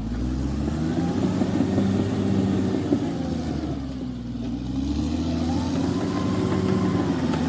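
Heavy machinery engine revving under load: its pitch climbs, sags about four seconds in, then climbs again, with a faint high whine above it.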